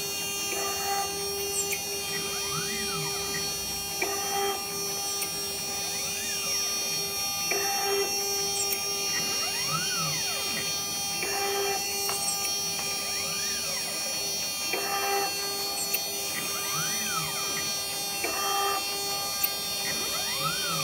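Desktop CNC router with an 800 W water-cooled spindle drilling holes in a burner: a steady high motor whine, with the axis motors whining up and falling back in pitch about every second or two as the head moves from hole to hole.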